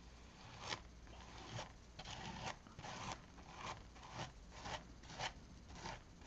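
Repeated short scraping strokes of a tool spreading thick graphite texture paste across a plastic stencil, faint and roughly two strokes a second, starting under a second in.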